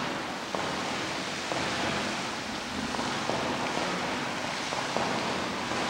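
Hot spring geyser spouting: a steady rushing of hot water and steam.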